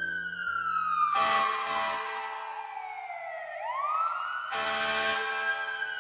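Recorded emergency-vehicle siren sound effect wailing in a slow fall and rise, broken by two short loud blasts, about a second in and near the end.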